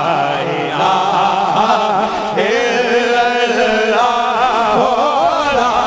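Three men singing a Hamd, a devotional Islamic hymn, together into microphones, in long drawn-out phrases whose held notes waver up and down in pitch.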